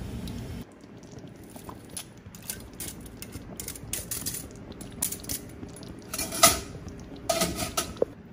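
Metal steamer basket clinking and scraping against the pan as steamed carrot chunks are tipped and knocked out of it into the curry. A run of scattered clinks and clatters, the two loudest near the end.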